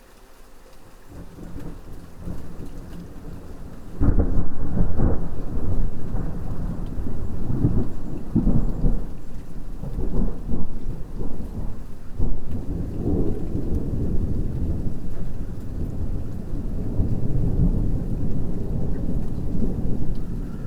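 Rain with rolling thunder: the sound swells in from faint, a thunderclap breaks about four seconds in, and deep rumbling rolls on in repeated surges.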